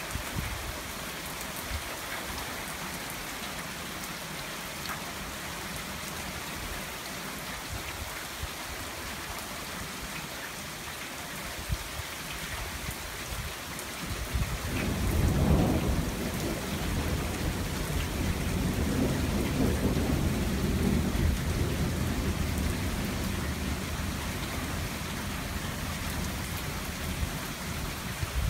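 Steady rain from a squall line thunderstorm, with a long low roll of thunder that starts about halfway through, swells, and rumbles on for several seconds before fading back under the rain.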